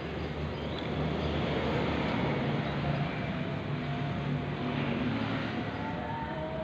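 Steady low engine hum of a running motor vehicle nearby, under a wash of street noise.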